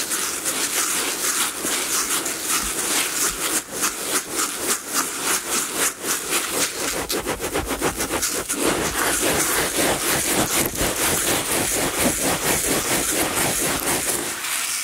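Dry uncooked rice in a plastic bucket rustling and crackling as hands dig, grip and twist through the grains: a dense, continuous grainy rustle made of many small clicks of shifting rice.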